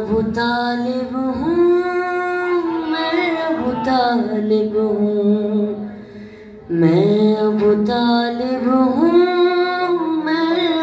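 A boy's voice sings an Urdu manqabat without accompaniment, amplified through a microphone, in long held melodic notes. He pauses briefly for breath about six seconds in, then starts a second phrase.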